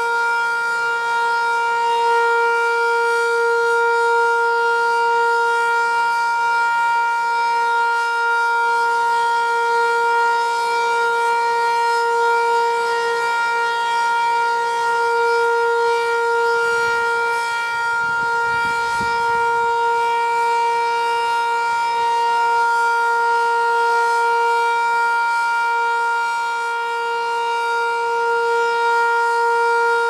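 8-port GCS Model 5 outdoor warning siren sounding a steady tone during a test. Its pitch holds constant while its loudness swells and dips slightly.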